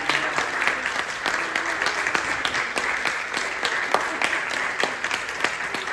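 Audience applauding steadily: many hands clapping together, with a few voices in the crowd.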